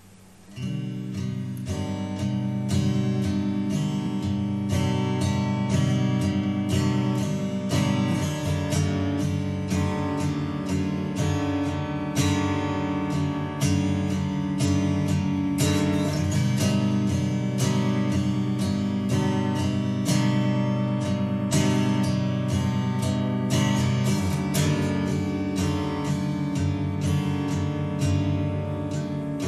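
Slowed-down song intro: strummed guitar with no singing, starting about half a second in.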